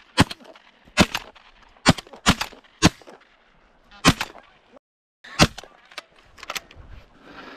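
Shotgun shots fired in quick succession at flying geese, about seven sharp, loud blasts spread over several seconds.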